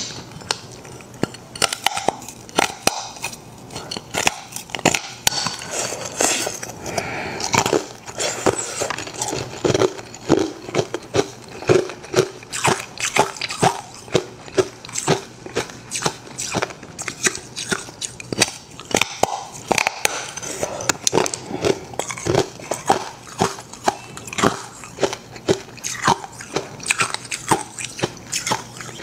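A slab of carbonated ice crackling and popping as it is handled right by a clip-on microphone. It makes a dense, uneven run of sharp little cracks, several a second.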